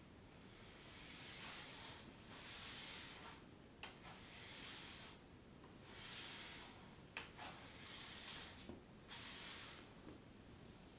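Sweeping brush swished back and forth across a smooth floor in repeated strokes, each about a second long, with two sharp light knocks, one in the first half and one past the middle.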